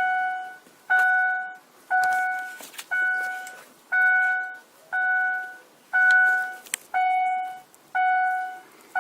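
Vehicle warning chime dinging steadily about once a second, each ding a clear bell-like tone that fades over about half a second.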